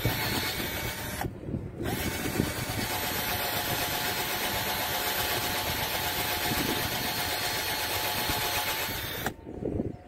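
Einhell cordless drill running as it bores a hole into a thin wooden stick: a steady motor whine over the bit cutting wood. It stops briefly a little over a second in, then runs again for about seven seconds and stops shortly before the end.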